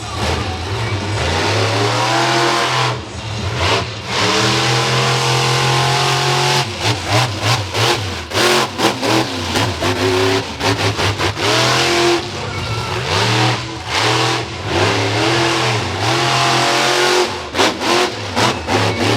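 Monster truck engine revving hard, its pitch rising and falling, with the throttle repeatedly chopped off and blipped back on during a freestyle run.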